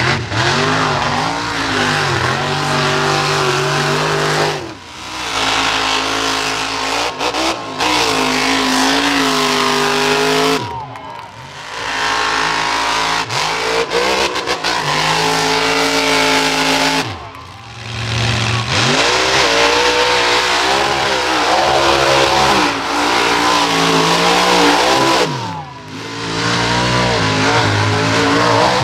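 Monster truck engines revving hard, their pitch climbing and falling as the throttle opens and closes. The sound dips briefly four times, about every six seconds.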